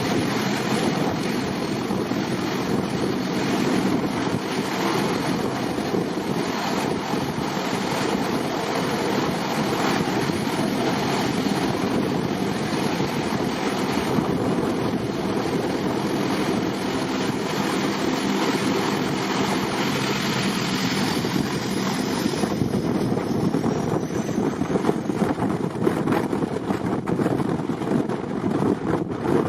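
Jet airliner engines running at high power, their blast buffeting the microphone as a steady loud rush, with a faint high whine rising about two-thirds of the way through.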